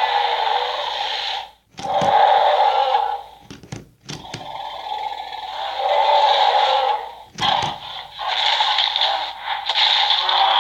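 Mattel Roarivores Triceratops toy playing its electronic dinosaur roar sound effects through its small built-in speaker, several roars one after another, each lasting a couple of seconds with brief pauses between.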